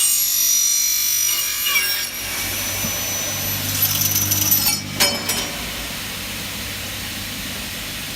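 Double-head aluminium cutting saw's circular blade cutting through a 2 mm aluminium window profile, a high-pitched screech that ends about two seconds in. A few sharp clicks follow around five seconds in, then the saw motor runs on steadily.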